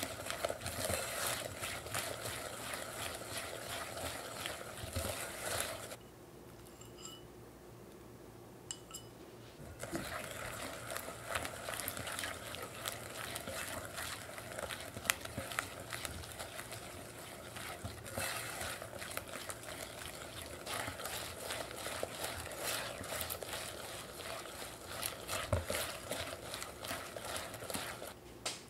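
Wire balloon whisk beating creamed butter and sugar in a glass bowl, its wires clicking and scraping rapidly against the glass. The whisking stops for about four seconds around six seconds in, then resumes as beaten egg is worked into the batter.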